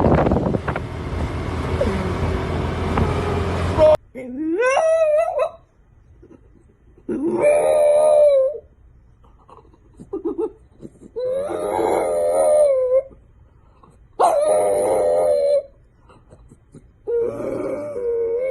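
A loud rushing noise that cuts off about four seconds in, then a dog howling: five drawn-out, wavering howls a couple of seconds apart, the first one rising in pitch.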